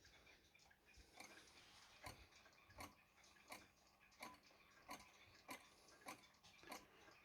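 Antique German Vienna wall clock ticking faintly and evenly, about three ticks every two seconds.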